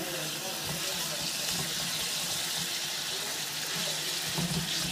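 Sliced zucchini sizzling in olive oil and soy sauce in a frying pan, a steady hiss, with a few soft knocks of a wooden spatula stirring it.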